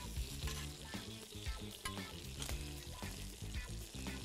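Chicken pieces sizzling on a hot ridged grill pan, with metal tongs clicking against the pan several times as they are turned. Soft background music runs underneath.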